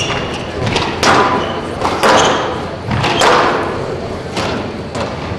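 A squash rally: the ball is struck by rackets and smacks off the court walls, a sharp thud about once a second in a large echoing hall.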